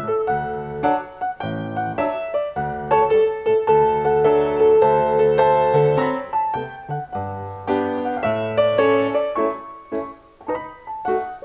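Piano duet on an acoustic grand piano and a Yamaha Clavinova digital piano, playing full chords over a held bass line. The playing thins out and grows quieter about ten seconds in.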